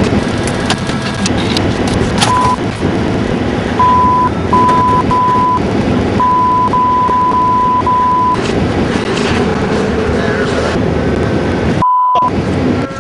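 Censor bleeps: a steady one-pitch beep repeated in short and long runs, with one run lasting about two seconds, masking shouted words over a noisy background of voice and car sound. Near the end a last bleep sounds while all other sound cuts out.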